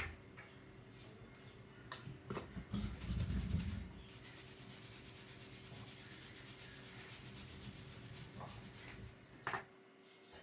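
ESD brush scrubbing a soldered circuit board to clear flux residue: a fast, even run of brushing strokes lasting several seconds from about three seconds in, with a few handling knocks before and after.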